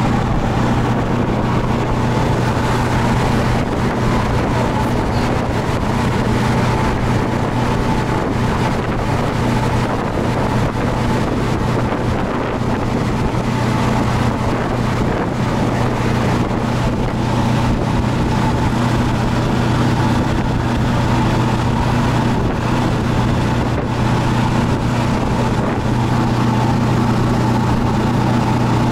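Motorboat engine running at a steady speed with a low hum, mixed with the rush of the wake and wind buffeting the microphone.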